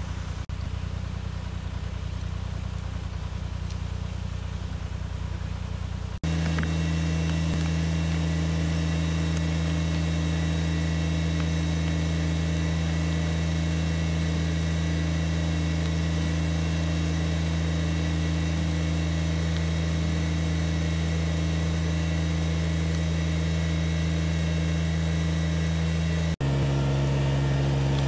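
20 hp compact tractor engine running steadily, a constant drone whose pitch and loudness jump abruptly about six seconds in and again near the end.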